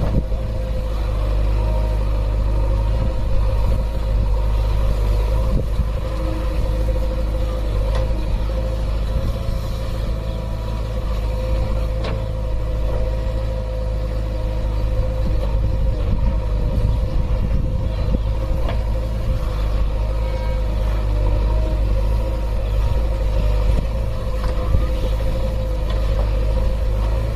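JCB 3DX backhoe loader's diesel engine running steadily while the machine works its backhoe arm, digging and lifting soil, with a steady whine over the engine.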